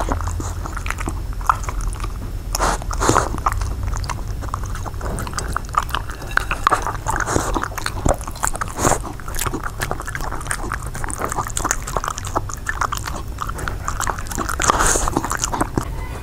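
A dog chewing and licking soft stir-fried balut quail eggs in tamarind sauce off a plate, close to the microphone: quick, irregular wet smacks and clicks, over a low steady hum.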